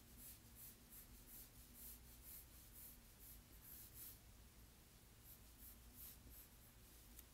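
Faint scratching of a pencil drawing on paper in short repeated strokes.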